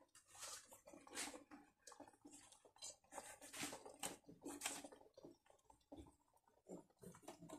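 Faint, irregular rustling and light knocks as leaf-wrapped tamales are lifted out of a steel bowl and packed into a cooking pot.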